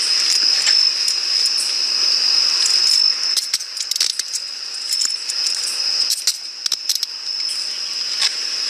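Steady high-pitched chorus of night insects trilling, with scattered sharp clicks and rattles, most of them clustered around the middle.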